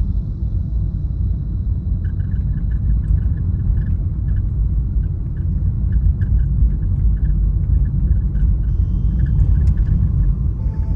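Steady low road and tyre rumble of a car driving, heard from inside the cabin.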